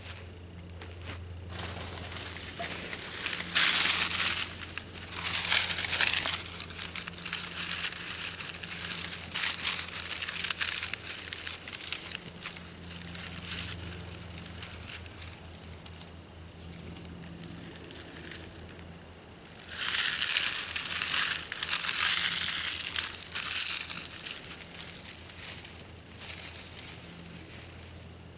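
Small campfire of dry twigs, grass and palm fronds crackling and snapping, with several loud bursts of crackle lasting a second or more as the dry kindling flares up.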